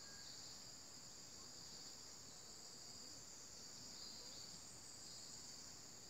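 Steady chorus of insects, a continuous high-pitched drone that does not change.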